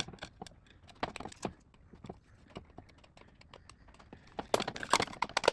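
Small scattered clicks and taps of hands handling hookup wire and tools while wiring a fire alarm bell. The clicking and rustling grows denser near the end.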